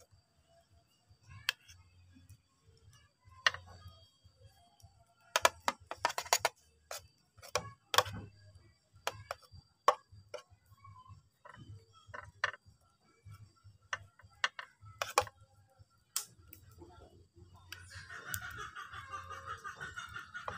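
Scattered light clicks and taps on a metal cake tin as butter is rubbed by hand over a hot baked cake layer, irregular and loudest about halfway through. A steady hiss comes in near the end.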